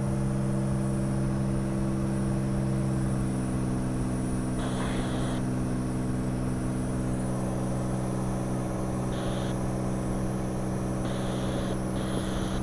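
Cirrus SR20's six-cylinder Continental engine and propeller at full climb power, heard from inside the cabin as a steady, even drone.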